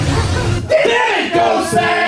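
A video clip played back: a voice yelling in drawn-out, pitch-bending cries over music, starting a little under a second in.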